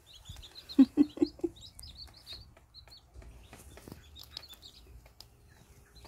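Newly hatched Cheonggye chicks peeping in short high chirps, thickest in the first second and a half, with a mother hen giving four short low clucks about a second in.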